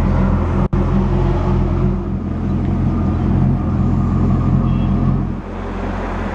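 Chevrolet Camaro Z28's 5.7-litre V8 idling steadily through its dual exhaust. The sound cuts out for a split second just under a second in, and the low rumble eases slightly about five seconds in.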